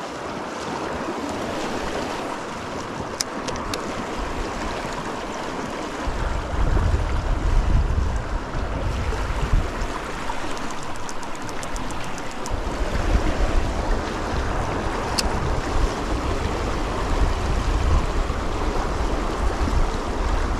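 Fast-flowing creek water rushing steadily. Wind buffets the microphone as a low rumble from about six seconds in, and there are a few brief ticks.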